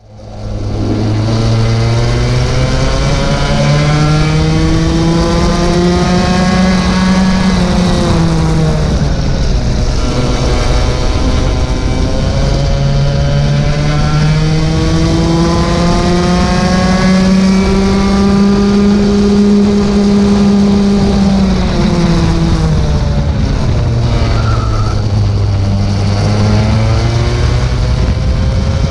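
IAME cadet kart's 60cc two-stroke engine at racing speed, heard onboard: the revs climb slowly along the straights and drop sharply when the throttle comes off for corners, once about eight seconds in and again near twenty-two seconds. The sound fades in over the first second.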